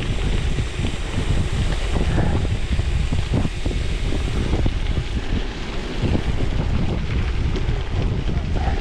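Wind buffeting the microphone of a chest-mounted action camera on a moving gravel bike, over a steady low rumble with scattered knocks from the tyres on rough gravel.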